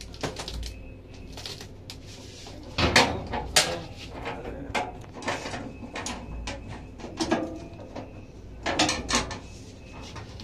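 Metal clanks, knocks and scrapes from handling the raised hood and panels of an opened reflow oven, with the loudest knocks about three seconds in and again near the end.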